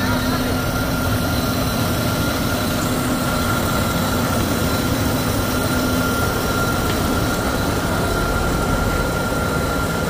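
Heavy diesel engine of a concrete pump truck running steadily, with a constant high whine over the engine drone.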